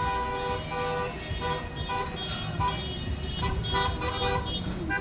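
Car horns honking in repeated short blasts, at least two horns of different pitch overlapping.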